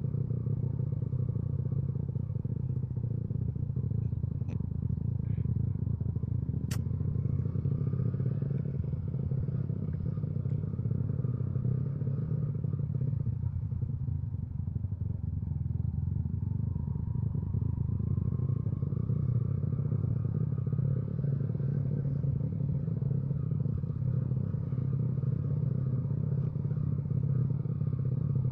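Motorcycle riding along: a steady low rumble of engine and road noise, with the engine pitch rising gently about two-thirds of the way through.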